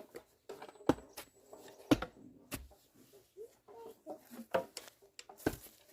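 Scattered sharp knocks and thuds, about five over several seconds, with faint voices in between.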